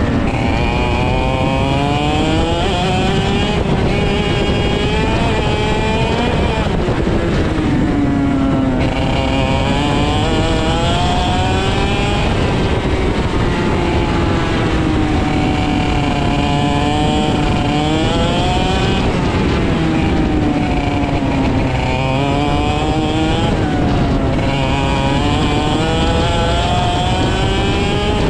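IAME X30 125cc two-stroke kart engine at racing speed, heard onboard: its pitch climbs for a few seconds along each straight, then falls as the driver lifts into a corner, again and again.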